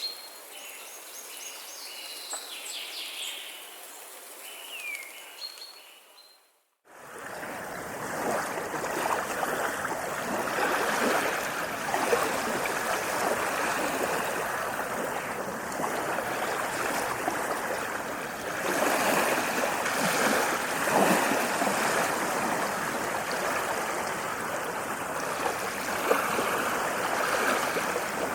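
High, repeated chirping calls over a faint hiss fade out about seven seconds in. Then a steady rush of running water, like a stream, takes over for the rest.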